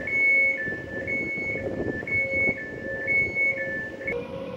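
Door warning signal on a Koleje Małopolskie electric multiple unit: an electronic beep alternating high and low, about one pair a second, four times over, stopping about four seconds in. It signals that the doors are about to close before the train departs.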